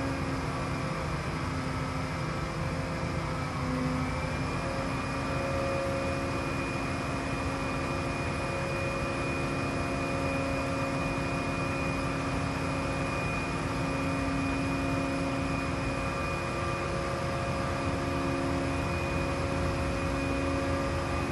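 Hyster RS45-31CH reach stacker's Cummins QSL9 inline-six diesel running steadily with a high whine while the boom is raised and extended. The pitch steps up slightly about four seconds in.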